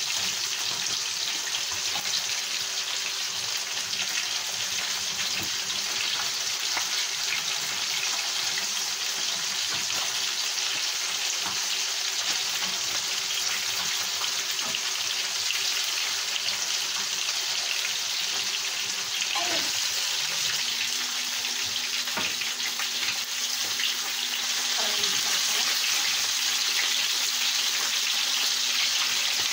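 Pieces of fish frying in hot oil in a pan: a steady sizzle that grows slightly louder in the last few seconds.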